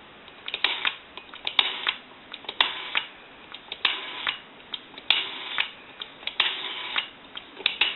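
Automatic Electric rotary dial on a candlestick telephone being pulled round and released about six times, each return a short run of clicking and whirring. The dial has been cleaned, adjusted and oiled and now returns smoothly.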